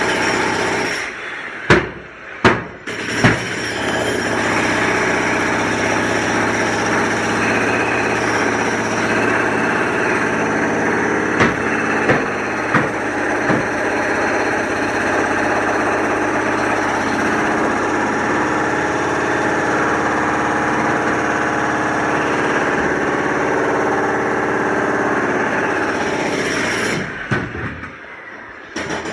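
Construction machinery: a heavy engine running steadily. Three sharp knocks come in the first few seconds and a few more about halfway through. The engine drops quieter near the end.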